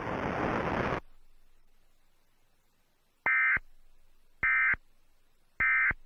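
About a second of hiss that cuts off, then three short, identical data bursts of the Emergency Alert System's SAME end-of-message code, about a second apart, signalling that the alert has ended.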